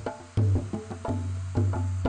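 Tribal-style drum music: deep, ringing low drum notes that hold for about half a second, interleaved with quick, sharp hand-drum strikes, several a second, in a repeating rhythm.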